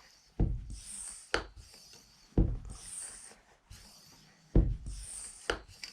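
PCP high-pressure hand pump being stroked to charge an air rifle: three strokes about two seconds apart, each with a knock and a short hiss. These are the first, easy strokes, before the pressure builds.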